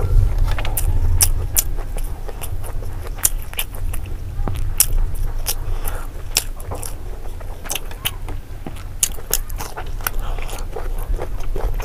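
Close-miked chewing and biting of rice and fried pork belly: many sharp, wet mouth clicks and smacks over a steady low hum.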